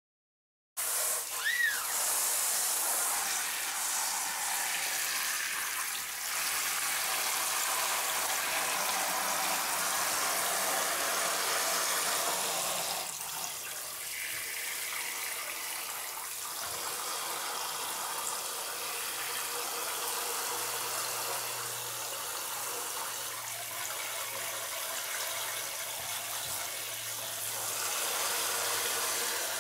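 Shower spray pouring into a bowl of water, a steady splashing hiss that starts abruptly about a second in and runs on. Just after it starts there is one short, high, curving cry, fitting a newborn kitten's mew.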